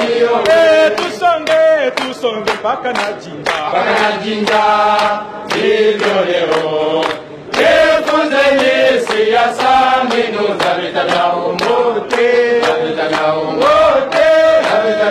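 A group of soldiers chanting and singing together, many men's voices at once, with a brief drop about seven seconds in.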